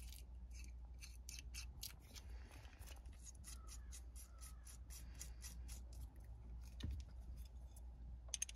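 Faint, uneven run of small metallic clicks and ticks as an Allen wrench is worked to tighten a ball mount onto a phone-mount bracket, over a low steady hum.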